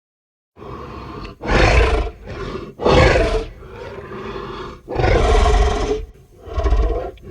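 Cartoon kaiju roar sound effects: after a brief silence, a lower sustained rumble starts about half a second in, then four loud roars about one and a half, three, five and nearly seven seconds in.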